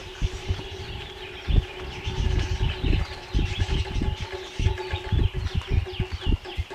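Many birds chirping in quick short calls, over irregular low rumbles and a faint steady hum.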